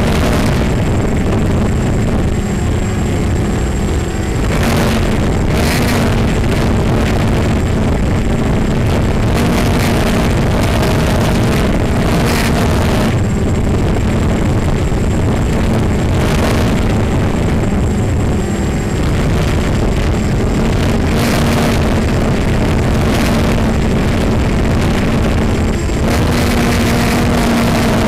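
ZMR 250 racing quadcopter's Emax 2204 brushless motors and propellers whining steadily, recorded close up by the onboard camera, with wind rushing over its microphone. The pitch shifts a little with throttle, and several brief surges of rushing noise come and go.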